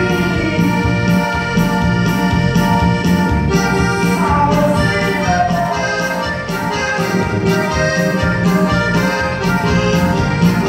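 Norteño dance music over large PA speakers: accordion carrying the melody over bass and a steady drum beat.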